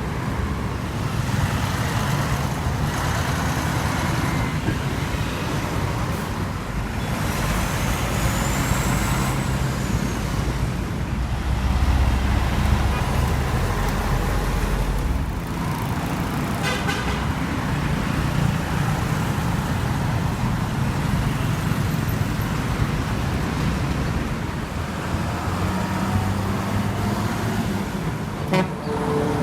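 Heavy truck engines running steadily amid city road traffic, a continuous low rumble.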